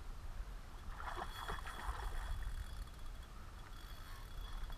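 Spinning reel cranked fast to retrieve a lure after a cast. A brief rush of noise about a second in, then a faint steady whine from the reel, over a low wind rumble on the microphone.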